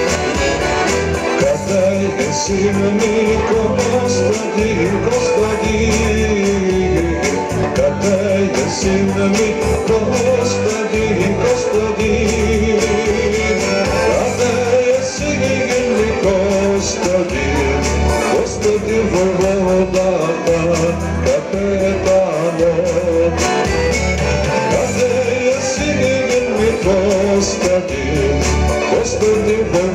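Man singing a Balkan folk song into a microphone over a recorded instrumental backing track played through a small speaker set.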